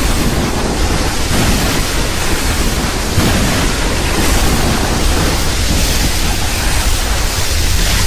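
Custom King Ghidorah monster sound effect: a steady, harsh, hissing rumble with a deep low end and no clear pitch.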